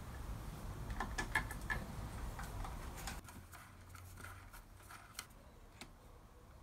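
Faint clicks and scrapes of a screwdriver turning a small machine screw into a tapped hole in an aluminium plate, with the metal fittings knocking lightly as they are handled; most of it falls in the first three seconds.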